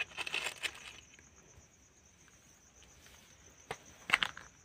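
Night insects chirring steadily in a high, evenly pulsing trill. A burst of rustling clicks in the first second and two sharp knocks near the end come from handling as the next bonsai pot is picked up.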